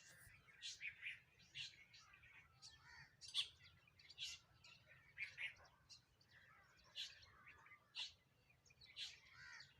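Sparrows chirping: a string of short, faint chirps at irregular intervals, several a second at times, with a few louder ones standing out.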